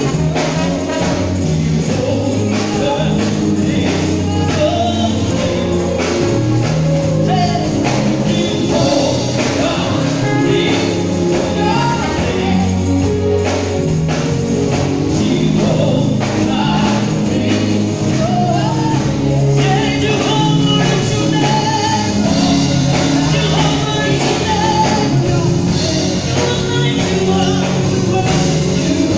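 A woman singing gospel into a microphone over a live band, with drums keeping a steady beat.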